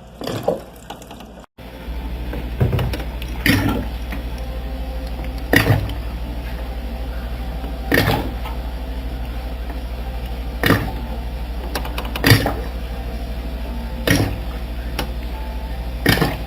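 Water dispenser running with a steady low hum, with a short gurgling glug every two seconds or so as water and air bubble through it.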